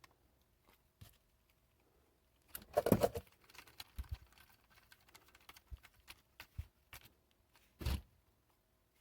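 Small plastic RC car parts and hand tools being handled while a rear carrier is mounted on a Tamiya M-05 chassis: scattered clicks and light rattles, with a louder clatter about three seconds in and another near the end.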